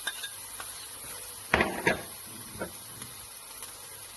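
Onion and garlic sizzling steadily in hot oil in a skillet, with a utensil knocking against the pan a few times, two sharp knocks close together about a second and a half in.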